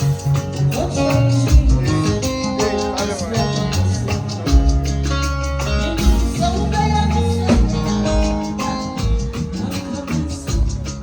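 Upbeat band music with a strong bass line, a regular drum beat and guitar, and a voice singing at times.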